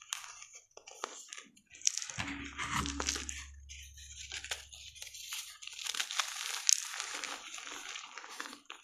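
Blocks of gym chalk being crushed and crumbled, giving a run of dense, crisp crunches and crackles. A low steady hum sounds beneath them from about two seconds in until about five seconds.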